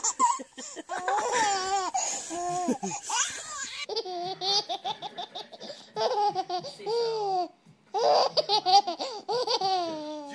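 Baby laughing hard in repeated bouts of high, breathy giggles, with a change to another baby's laugh about four seconds in.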